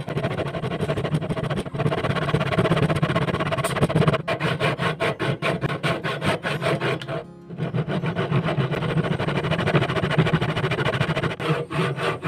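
Hand saw cutting across a wooden post in quick, rhythmic back-and-forth strokes, with a short pause a little past halfway. Background music runs underneath.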